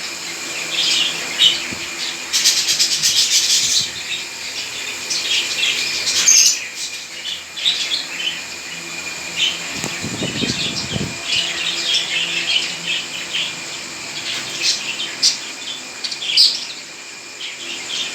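A flock of pet parrots chattering, with many short high chirps and squawks overlapping throughout and a dense flurry of calls a few seconds in.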